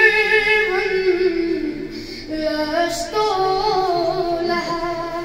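An eleven-year-old boy singing a Kashmiri naat unaccompanied, holding long, ornamented notes. He sings two drawn-out phrases, with a brief breath about two seconds in.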